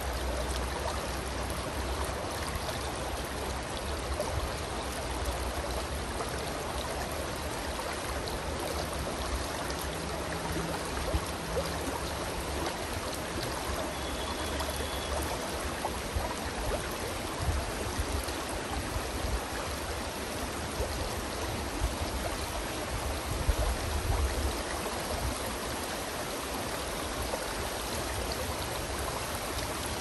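Shallow stream running over a rocky riffle: a steady rush and ripple of flowing water.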